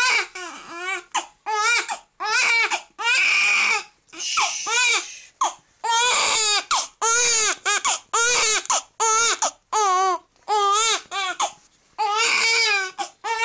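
Newborn baby crying: a long string of short, high-pitched wails, about one a second, each with a wavering pitch and separated by brief catches of breath. The cries are loud throughout.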